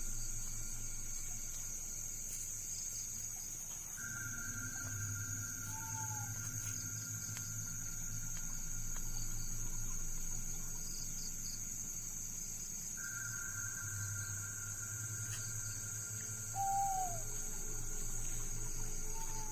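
Night insects droning steadily at a high pitch, with a second steady insect tone joining a few seconds in. A few short falling bird calls come once near the middle and twice near the end, over a steady low hum.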